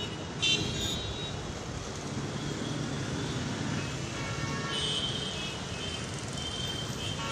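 Busy street traffic with vehicle horns honking: a short, loud honk about half a second in and more horn toots around four to five seconds.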